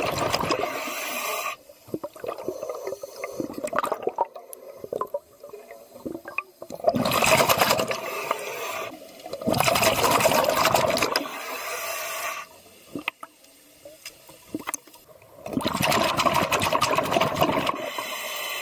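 Scuba air bubbling and rushing underwater in bursts a couple of seconds long, with quieter gaps between them.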